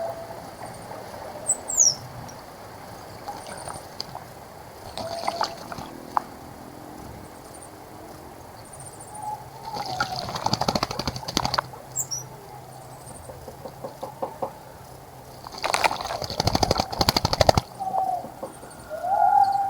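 A bird bathing in a bird bath: two bouts of splashing and wing fluttering in the water, about ten seconds in and again about sixteen seconds in, each lasting a second or two. Between them, short low cooing notes from doves and a few faint high chirps.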